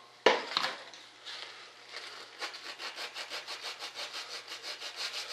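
A sharp knock just after the start, then from about two seconds in rhythmic back-and-forth rasping strokes by hand on a wooden model part, about three to four strokes a second.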